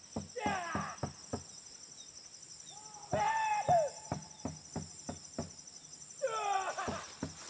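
Three loud, drawn-out calls falling in pitch, about three seconds apart, from the hunting party during a wild boar chase, over a steady high insect drone.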